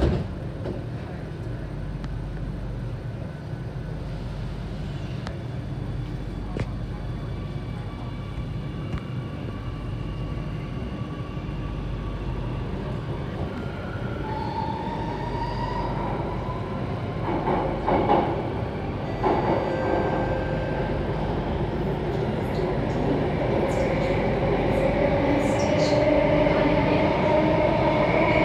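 SMRT Circle Line C830C metro train running through a tunnel, heard from inside the car: a steady rumble of wheels on track, with a motor whine rising about halfway through and a few clanks around two-thirds in. Near the end, as it pulls into the platform, several whining tones grow louder.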